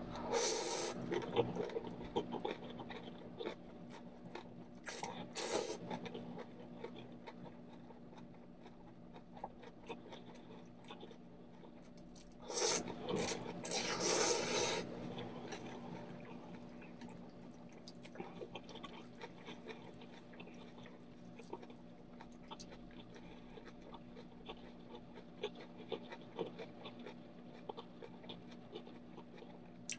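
A person slurping instant ramyeon noodles from chopsticks, in loud sucking bursts about a second in, around five seconds, and a longer one from about twelve to fifteen seconds, with quieter chewing and mouth noises between.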